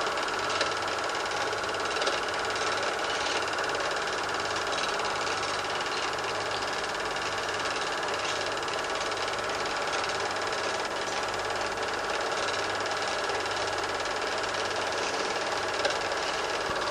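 Super 8 film projector running: a steady mechanical whirr and clatter with a faint pulsing hum and a few small clicks.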